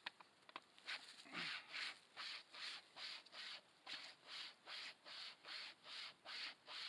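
Pocket wire survival saw rasping through a half-rotten tree trunk in steady back-and-forth strokes, about three a second, starting about a second in.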